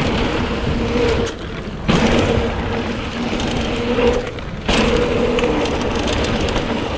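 A Trek Fuel EX 5 mountain bike ridden fast down a dirt trail: a steady rush of wind on the action camera and knobby tyres rolling over the ground. The sound drops off briefly twice, about a second and a half in and again around four and a half seconds.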